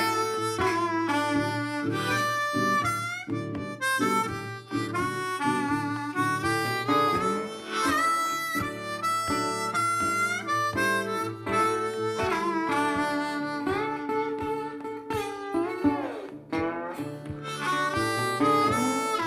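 Background music: a harmonica playing a tune over guitar, with some notes bent in pitch.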